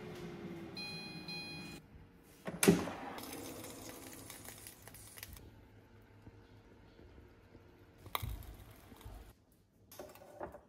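Air fryer beeping a few times while its fan whirs down, the pitch falling until it stops. About a second later comes one loud sharp clack and a short hiss, then a low thump, and near the end a few clicks of metal tongs against the basket.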